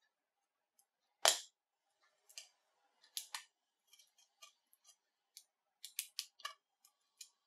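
Metal pry tool prying and scraping at a Nokia Lumia 930 phone frame: a string of sharp clicks and small snaps, with one loud snap about a second in.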